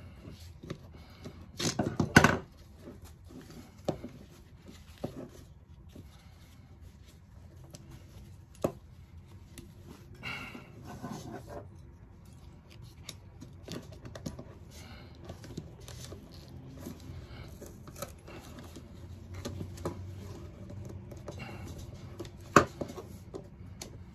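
A jammed ratchet strap being worked free by hand: nylon webbing rustling and scraping as it is pulled and twisted through the mechanism, with scattered metal clicks and knocks, the loudest a quick cluster about two seconds in.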